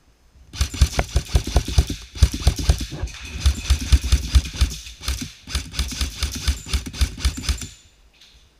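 Airsoft gun firing full-auto in several long, rapid bursts of shots, starting about half a second in and stopping shortly before the end.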